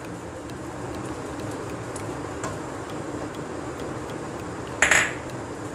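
Cooking oil heating in a frying pan on the stove: a steady low hiss with faint, scattered ticking. A brief, louder noisy burst comes about five seconds in.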